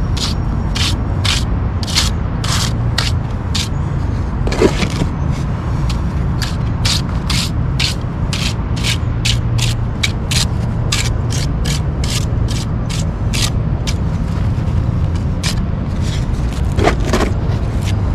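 Steel trowel scraping and dabbing wet rapid-set concrete against a concrete curb in quick, short strokes, a few a second, pausing briefly near the end, over a steady low rumble.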